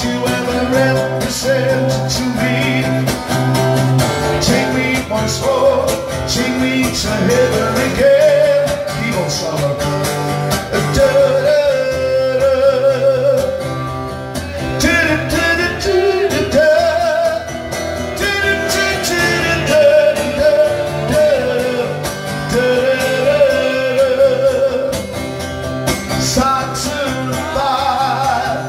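A man singing with a strummed Takamine acoustic guitar, played live.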